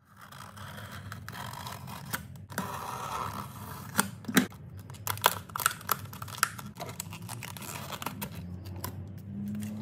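Stiff clear plastic clamshell packaging being cut open with scissors and pried apart by hand: irregular snips, crackles and clicks of the plastic, with sharper snaps about four and five seconds in.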